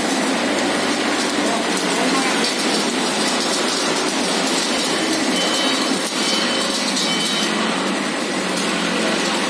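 Femaksan FEMAX2800 fertilizer packing machine running with a steady, dense noise as a bag clamped under its hopper spout is filled.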